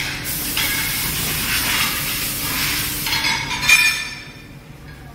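Steady hiss of escaping air that lasts about four seconds, then dies away, with a short metallic ring just before it ends.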